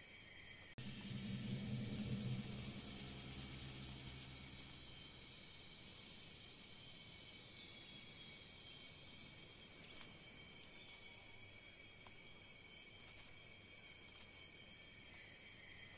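Insects trilling steadily in a high chorus of several pitches. A low droning tone joins about a second in and fades out about five seconds in.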